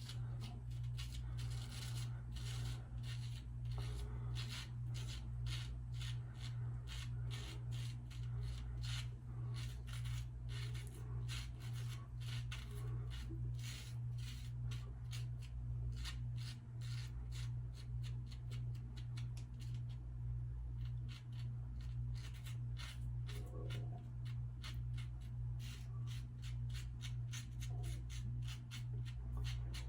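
Safety razor (a Superior lather catcher) scraping through lathered stubble in many short, quick strokes, with a brief pause about twenty seconds in. A steady low hum runs underneath.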